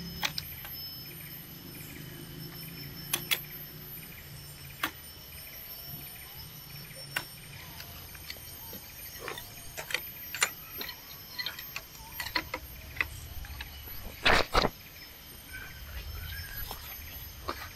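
Tropical forest insects buzzing in steady high tones, with a chirp repeating about twice a second through the first half. Scattered sharp clicks and knocks sound over it, the loudest a pair of knocks about 14 seconds in.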